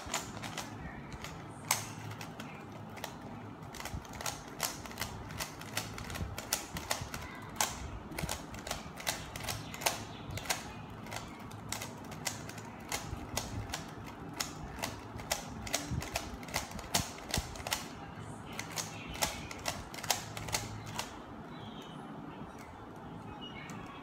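Rubik's cube being scrambled with one hand: its plastic layers turning with rapid, irregular clicking and clacking, several clicks a second, stopping near the end.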